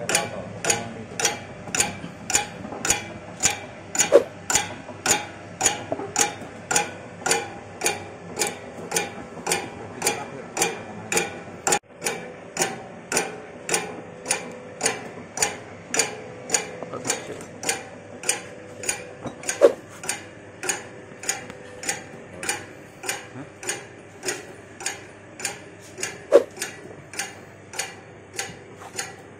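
Dough divider machine's rotating cutter clicking steadily about twice a second as it slices extruded dough into portions. The machine hums faintly underneath, and there are three brief squeaks.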